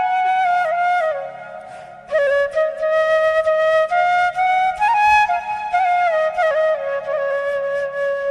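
Background music: a solo flute playing a melody of held notes that slide from one to the next, fading briefly about a second in before carrying on.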